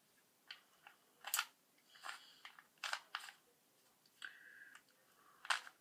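Plastic Rubik's cube layers being twisted by hand: a faint, irregular run of clicks and short rattling scrapes, about eight turns, two or three of them sharper than the rest.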